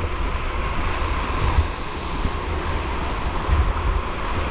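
Steady rushing of white water in a canyon, with wind buffeting the microphone.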